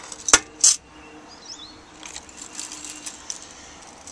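Small metal props being handled: a sharp click and then a short metallic jingle in the first second, then a few faint ticks. Faint short chirps sound in the background.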